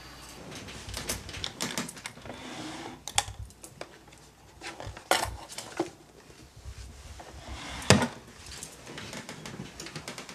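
Scattered knocks and clatter of hard objects being handled, with the loudest knock about eight seconds in.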